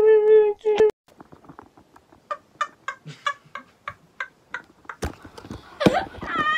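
Chickens clucking: a run of short clucks about three a second, then louder, wavering calls near the end. A steady held tone sounds briefly at the start.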